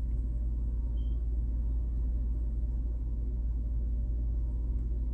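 Steady low electrical-type hum with a rumbling undertone, unchanging throughout; no distinct handling sounds stand out.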